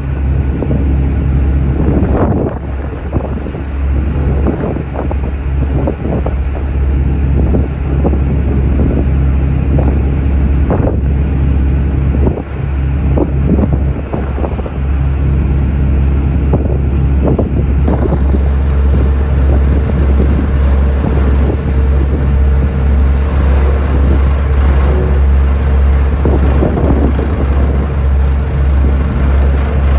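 Ro-ro ferry's engines droning in a steady low hum, with wind gusting and buffeting the microphone in irregular bursts. A faint steady tone joins in about two-thirds of the way through.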